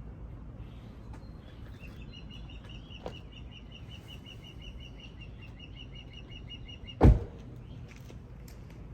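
A bird trilling, a run of quick repeated high notes lasting about five seconds, over a steady low outdoor rumble. A single loud thump comes about seven seconds in.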